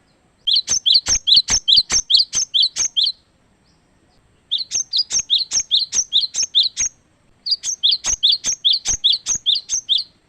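Cinereous tit (gelatik batu) singing: a sharp two-part whistled note repeated about four times a second in three long bouts, with short pauses near the one-third and two-thirds marks.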